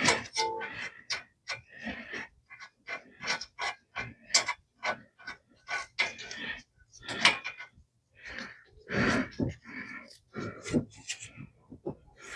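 Irregular clinks, knocks and scrapes of hand work on a car's front brake assembly as the caliper bracket and its bolts are refitted over a new rotor, with a brief ringing note about half a second in.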